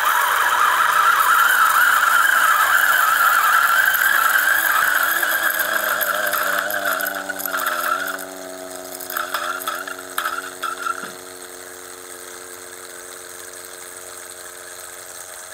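G64 64 mm flat-burr coffee grinder grinding coffee at a low speed setting. Its titanium-coated burrs give an incredibly loud, high-pitched squealing whine for about eight seconds. The whine then falters and cuts out about eleven seconds in as the grinding finishes, leaving the motor running empty with a quieter steady hum.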